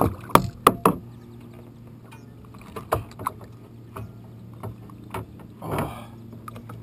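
Sharp clicks and knocks as a hooked largemouth bass is lipped from the water and handled against a kayak, with rod, lure and hull tapping together; the loudest cluster is in the first second, a few more knocks follow, and a brief rustle or splash comes near the end. A steady low hum runs underneath.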